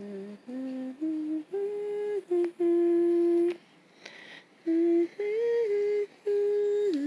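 A person humming a slow tune, one held note after another with short breaks between them, sliding down at the end of a phrase near the end.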